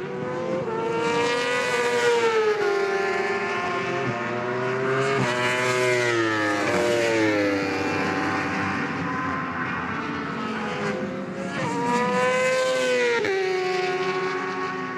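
Several racing motorcycle engines revving hard and passing, their pitch climbing and falling as they work up and down through the gears, overlapping one another.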